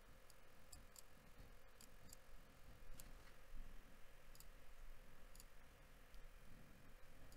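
Near silence with faint, irregular computer mouse clicks.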